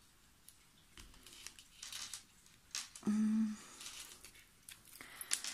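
Soft crinkling and rustling of a thin resin mold being flexed and peeled to pop out a red resin coffin frame, with a few small clicks. A short hummed "hmm" comes about three seconds in.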